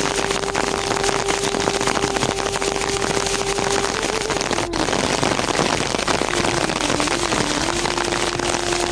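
Steady rain falling on surfaces, a dense patter of drops, with a faint steady hum underneath that wavers slightly in pitch. The sound breaks briefly about halfway through, where the footage cuts.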